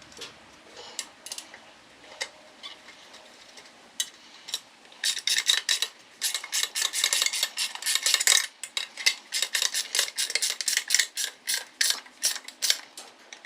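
Metal hand wrench clicking and clinking as a bolt is tightened down into a nut. A few scattered clicks at first, then quick, busy clicking from about five seconds in almost to the end.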